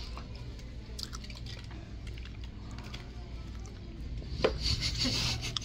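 Close-up wet chewing and lip-smacking of a person eating a fried chicken sandwich, with small clicks throughout and a louder noisy stretch about four and a half seconds in, over a steady low hum.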